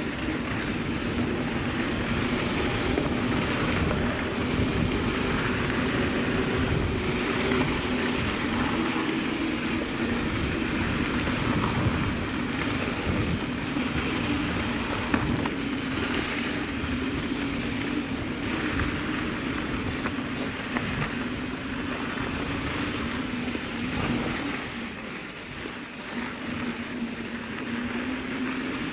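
Mountain bike rolling over a dirt trail: tyre and gear rattle over the ground, with wind buffeting the microphone and a steady buzzing hum throughout.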